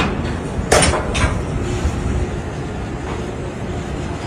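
Steel container lashing rods clanking, with a few sharp metallic clanks, the loudest about a second in, over a steady low rumble.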